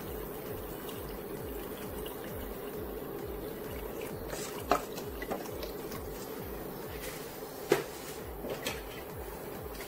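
Bone broth poured from a metal pot into a pot of lentil soup, liquid splashing steadily. Two sharp clinks stand out, one about halfway through and one near the end.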